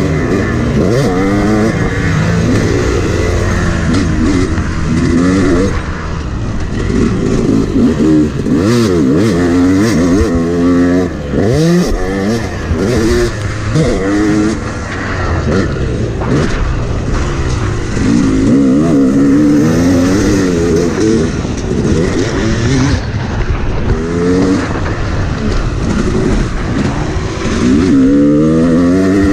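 Yamaha YZ250 motocross bike engine heard onboard while riding a dirt track, the revs climbing and dropping off again and again as the rider throttles through shifts, jumps and corners, with wind rushing over the microphone.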